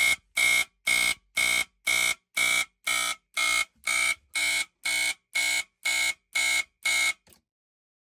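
Firex FX1020 120-volt smoke alarm sounding in march-time pulses driven by a fire alarm panel, about two high-pitched beeps a second. The beeping stops about seven seconds in.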